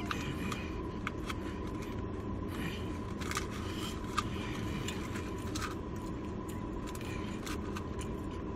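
Scattered small clicks and crinkles of food and its paper packaging being handled, over a steady low hum with a faint constant high tone.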